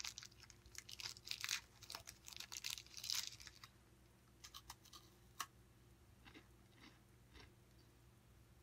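Crinkling and tearing of a Coffee Crisp candy bar's wrapper as it is unwrapped, then a sharp crunch of a bite into the chocolate wafer bar and faint, scattered chewing clicks.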